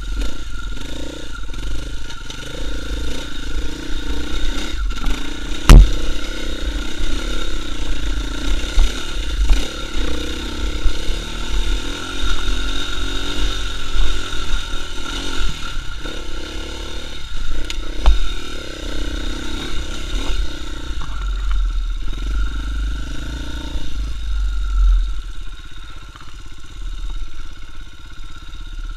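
KTM 450 EXC enduro bike's single-cylinder four-stroke engine running under changing throttle while the bike is ridden over rutted forest singletrack, with a heavy low wind rumble on the microphone. A single sharp knock about six seconds in.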